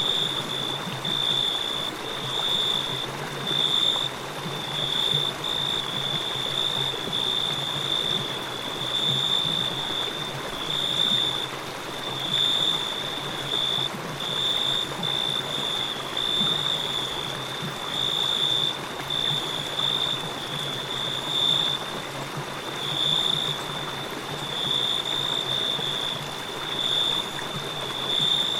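Crickets chirping in short high-pitched trills, about one a second, over the steady rush of a flowing river.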